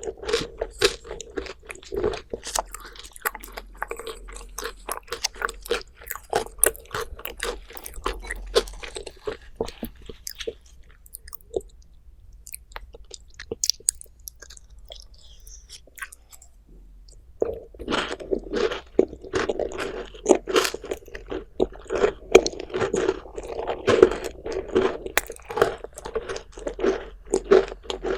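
Close-miked crunchy chewing of a dessert, with a quieter lull of several seconds in the middle before the crunching picks up again.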